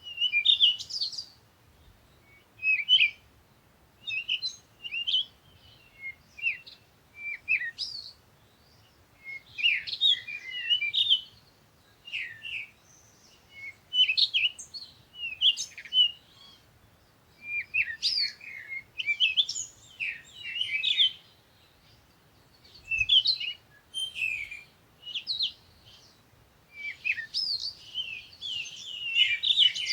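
Small songbirds chirping and twittering in short, high, quick bursts that come in clusters every second or two, with brief quiet gaps between. The chirps are busiest and overlap most near the middle and towards the end.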